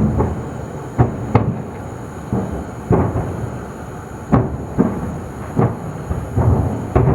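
Small propane cylinders exploding one after another in a burning propane-tank plant. About a dozen sharp bangs come at irregular spacing, each trailing off in a rumble, over a steady low rumble.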